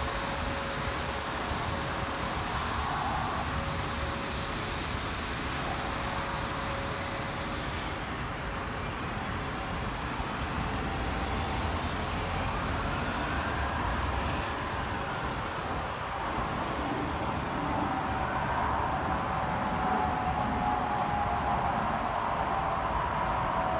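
Double-decker bus engine running as the bus pulls away, a steady drone with a whine that slowly falls in pitch near the end, over the hum of traffic.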